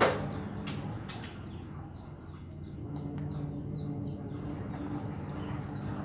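A small bird chirping in a quick series of short falling notes, over a steady low hum. A single sharp knock right at the start.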